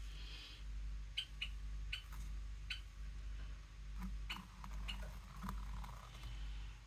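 Soft rustling and scratching of painted strips being woven into a painting and pushed into place with a thin tool and fingertips, mostly in the second half. Under it run a steady low hum and faint regular ticking, about one tick every three quarters of a second.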